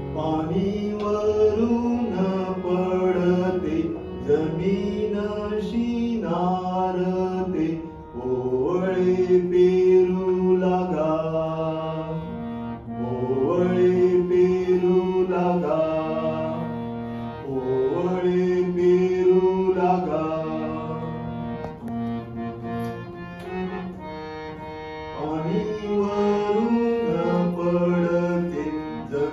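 A man singing a slow Indian classical-style devotional song in long held, ornamented phrases, with short breaks between them, accompanied by a harmonium holding sustained notes.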